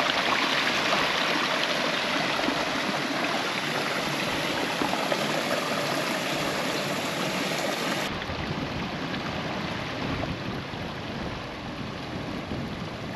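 Small stream cascading into a deep rock chasm: a steady rush of falling water. About eight seconds in the sound changes abruptly, duller and with more low rumble.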